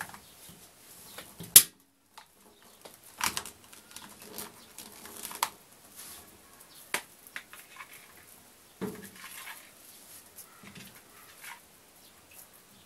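Rubber drain hose and power cord being handled against the sheet-metal back of a washing machine: irregular rustling with light knocks and taps, and one sharp click about a second and a half in.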